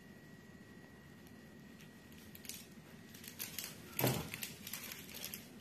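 Small handling clicks and rattles, starting about halfway through, with one louder knock about four seconds in.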